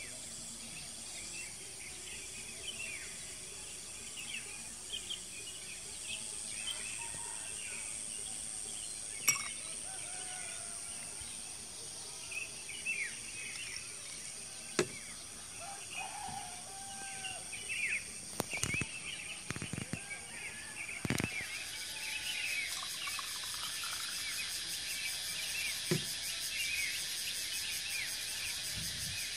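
Dusk ambience: many small birds chirping and twittering over a steady high insect drone, with a louder, pulsing insect chorus setting in about two thirds of the way through. A few sharp short knocks stand out.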